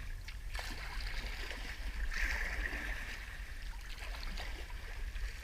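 Water splashing and trickling around a sea kayak as it is paddled, swelling about two seconds in, over a steady low rumble.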